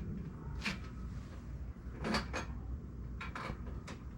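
A handful of short clicks and knocks as a pedal crank is fitted onto a bicycle's crank axle. The loudest pair comes about two seconds in.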